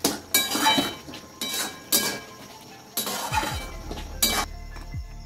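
Metal utensils clinking and scraping: a spatula knocking and scraping around a metal kadai of pea ghugni, and a stainless steel bowl clanking on the stove, a run of sharp ringing clinks that thins out near the end.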